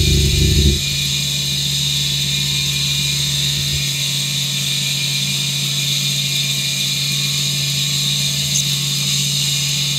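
Wood lathe running steadily with a low hum and a steady hiss as the spinning wooden top blank is sanded. A louder low rumble stops under a second in.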